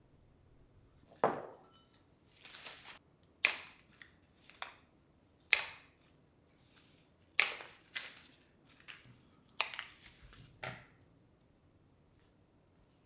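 Flower stems being snipped and wrapping paper crinkled: about ten sharp cuts spread over some ten seconds, with a longer paper rustle near the start.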